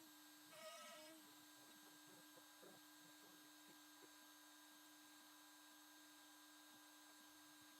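Near silence with a faint, steady electrical hum; a brief faint wavering sound about a second in.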